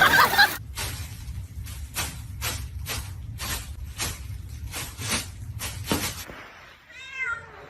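A domestic cat, meowing once near the end. Before that comes a run of short, sharp noise bursts about twice a second.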